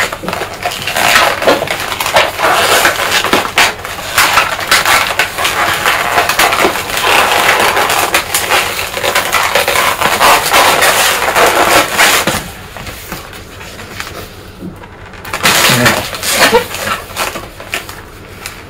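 Latex modelling balloons squeaking and rubbing against each other as a long balloon is twisted and wrapped onto a balloon figure: a dense run of squeaks for about twelve seconds, then quieter, with one more short burst of squeaking later on.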